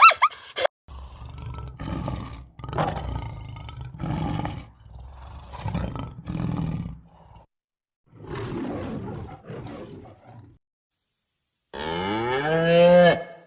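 A lion roaring in a series of about nine deep, pulsed roars roughly a second apart. Near the end a cow moos once.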